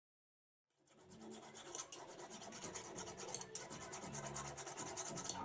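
A hooked steel cutting blade being sharpened against a flat file: quick, continuous rasping strokes of steel on file, starting about a second in. The blade is being kept sharp for cutting tyre rubber.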